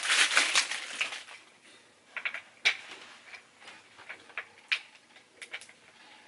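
About a second of rustling handling noise, then a few scattered sharp clicks and taps of plastic caster wheels being pushed into a gaming chair's base.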